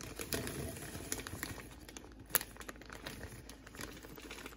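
Plastic candy bag crinkling as mini marshmallows are poured from it into a glass jar, with many small crackles and one sharper click about halfway through.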